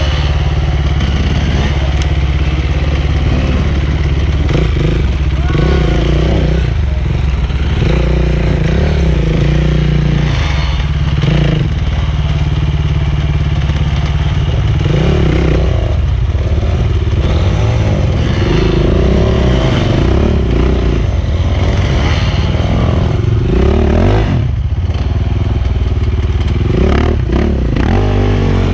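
Enduro dirt bike engine running loud and revving up and down again and again as it is ridden over rough off-road ground.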